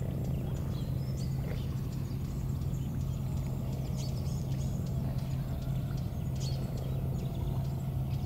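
Birds calling in short, scattered high chirps over a steady low hum.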